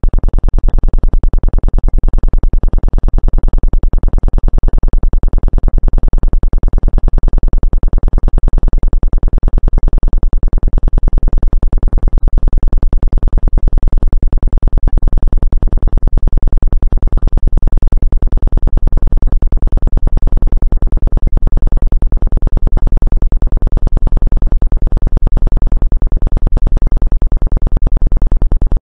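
Synthesized Rife frequency tone: a loud, low, steady buzzing tone with overtones, unchanging throughout.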